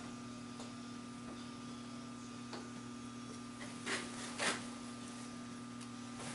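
Handling noises of a steel workpiece being set in a milling machine vise on an adjustable parallel: a few faint clicks, then two short scraping knocks about four seconds in, half a second apart. A steady low electrical hum runs underneath.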